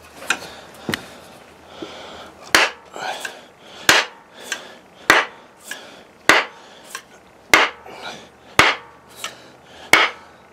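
Wooden mallet knocking on the end of a wooden axe handle, about seven sharp strikes a little over a second apart, each with a lighter knock after it, driving a 1-pound axe head down onto the handle during hafting.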